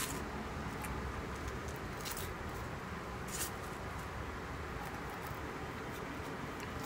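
Foil wrapper of a Kinder chocolate egg being handled and peeled, giving a few brief, faint crinkles over a steady background hiss.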